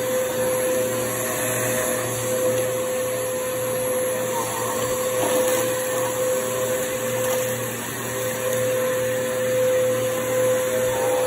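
Bissell upright bagless vacuum cleaner running steadily with a constant whine. Its sound swells and dips a little as it is pushed over a shaggy rug and carpet.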